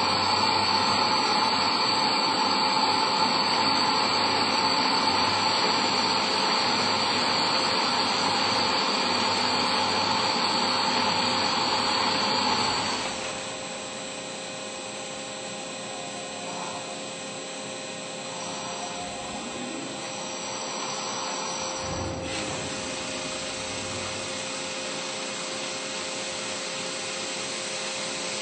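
CNC lathe machining a metal part under flood coolant: a loud, steady cutting noise with a high whine, dropping to a quieter steady machine hum about halfway through.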